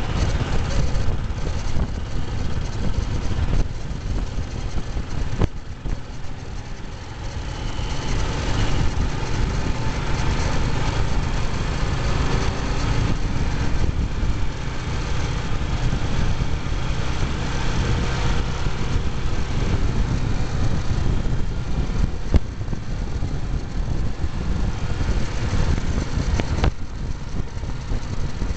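Royal Enfield Machismo AVL 350's single-cylinder four-stroke engine pulling at high speed, with steady rushing noise from riding fast. The sound drops briefly about six seconds in, then builds up again and holds.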